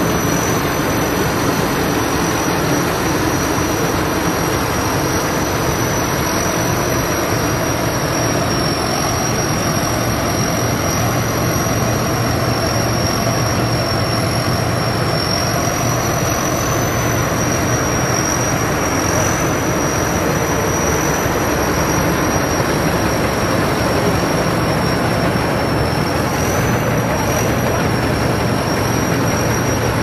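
Tracked rice combine harvester's turbocharged diesel engine running steadily and loud, a constant high turbo whistle riding over the engine's low hum.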